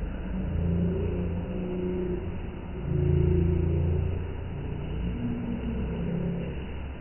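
Thunder rumbling low, in rolling swells, loudest about three seconds in.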